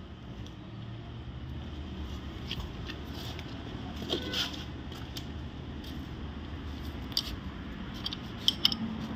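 Scattered light metallic clicks and clinks as a Toyota 2ZR engine's timing chain is handled onto its sprockets and a ring spanner is set on the camshaft sprocket bolt, over a steady low hum.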